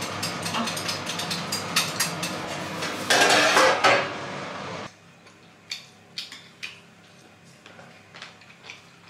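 Kitchen clatter of dishes and utensils, with a louder rush of noise about three seconds in. At about five seconds it drops abruptly to quiet, with sparse crunches and clicks of someone eating jellyfish with chopsticks.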